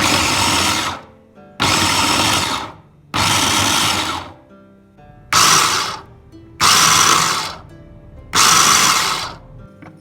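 Electric kitchen blender run in six short pulses of about a second each, with brief pauses between, over soft background music.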